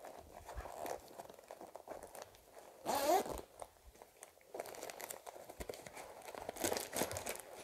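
A soft padded carry bag being opened and rummaged through by hand: fabric rustling and small clicks, with a louder burst of handling noise about three seconds in.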